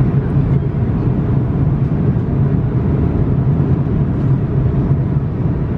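Steady low drone of engine and airflow noise inside the cabin of an Airbus A340-600 with its four Rolls-Royce Trent 500 engines, as heard from an economy window seat in flight.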